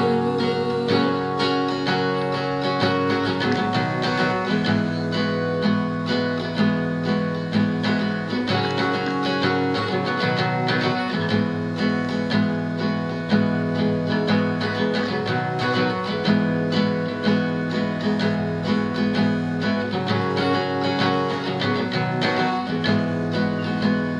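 Instrumental break of a song, led by acoustic guitar, with no singing.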